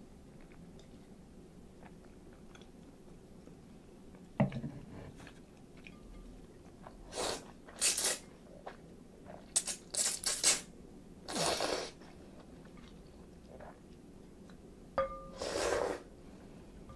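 Chilled ramen noodles slurped in several quick noisy pulls, after a single knock about four seconds in. Near the end a short clink, then a sip of broth slurped from a spoon.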